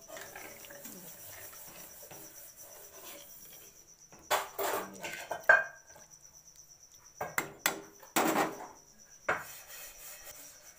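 A steel ladle stirring gravy in a metal kadhai, scraping and clinking against the pan in short bursts about four seconds in and again around seven to nine seconds in. A steady high insect trill runs behind it.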